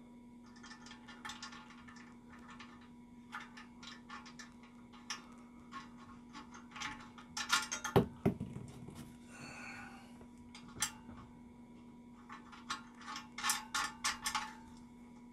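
Small metal clicks and rattles as a washer and lock nut are fitted and turned onto a long steel cap screw through the swing frame pivot, in clusters of quick ticks, with one sharp metal knock about eight seconds in.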